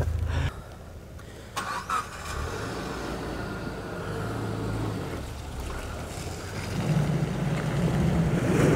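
UAZ Patriot SUV's engine running low and steady, with two short clicks about one and a half to two seconds in, then revving up and growing louder over the last two seconds as the car tries to pull out of the mud it is stuck in.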